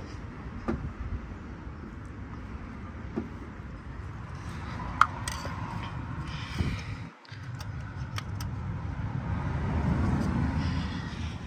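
A screwdriver worked inside the spark plug tube of a Toyota 5VZ-FE V6 valve cover, making a few light clicks and scrapes of metal on metal, the sharpest about five seconds in, over a steady low rumble. The sound drops out briefly about seven seconds in.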